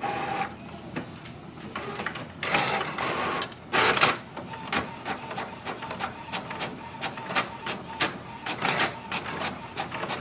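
HP OfficeJet Pro 8135e inkjet all-in-one printing a color copy: a few whirring bursts of its mechanism in the first four seconds, then a fast run of clicks as it prints the page and feeds it out into the tray.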